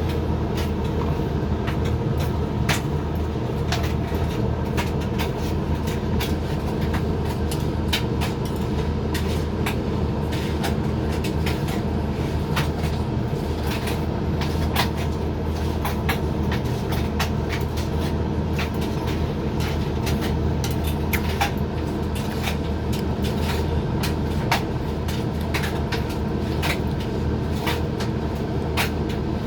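Hoover XXL dryer running a 60 °C drying cycle: a steady motor and fan hum with the drum turning, and light irregular clicks and taps from the load tumbling against the drum.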